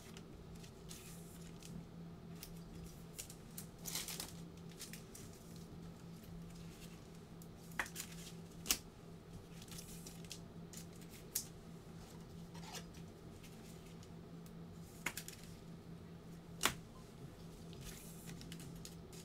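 Faint handling of trading cards: scattered sharp clicks and brief rustles as cards are picked up, slid and set down, over a steady low hum.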